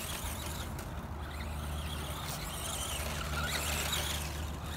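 Dromida SC4.18 1/18-scale RC short course truck's brushed electric motor and four-wheel-drive gears whining faintly as it drives on grass, the pitch wavering with the throttle, over a steady low rumble.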